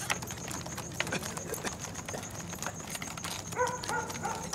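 Scattered clicks and knocks, then a dog whining in short pitched notes that step down, starting about three and a half seconds in.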